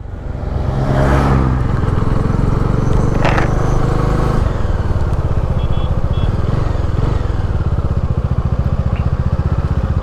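Motorcycle engine running steadily at road speed, with a fast even firing pulse and wind rush on the rider's microphone.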